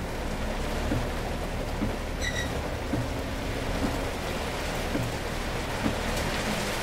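Heavy rain drumming on a Scania City Wide city bus, with the windscreen wipers thumping at the end of each sweep about once a second and the bus engine droning low underneath. A short high beep sounds once, a little over two seconds in.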